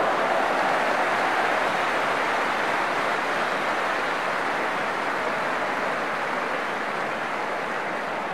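A steady rushing noise with no distinct strokes, slowly fading.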